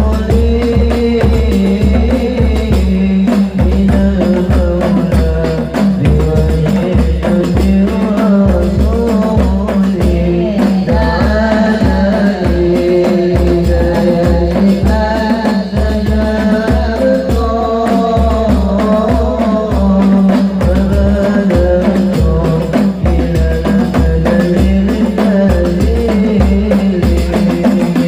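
Hadroh ensemble performing a sholawat: men's voices singing over a steady beat of deep-toned frame drums.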